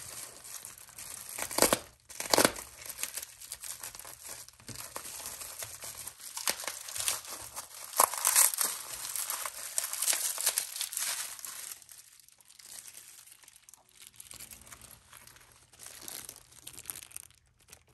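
Plastic packaging and bubble wrap crinkling and tearing as they are cut open with a utility knife and pulled off by hand. The crackling comes in irregular handfuls, loudest in the first twelve seconds or so, then softer.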